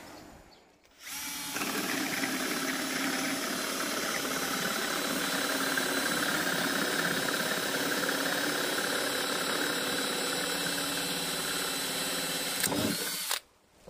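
Cordless drill turning a Pro-Fit TCT hole saw as it cuts down through a thick piece of softwood timber. It runs steadily from about a second in and stops shortly before the end, as the saw comes out through the back of the wood.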